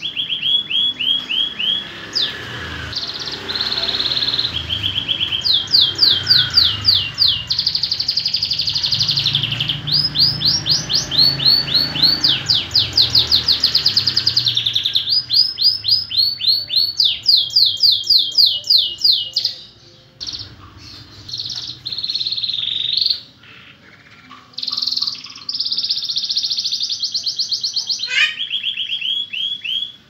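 Domestic canary singing a long, varied song of rapid trills, each a quick run of fast repeated notes, with a few short breaks past the middle.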